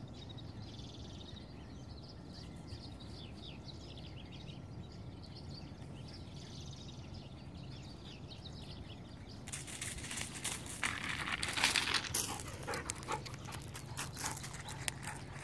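Faint outdoor background for the first ten seconds or so, then loud, irregular crunching of footsteps on loose stones and gravel close to the microphone.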